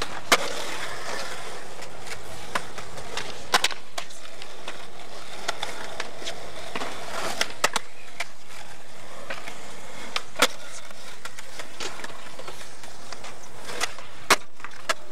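Skateboard wheels rolling on smooth concrete, broken about five times by sharp cracks of the board popping and slapping down as tricks are landed.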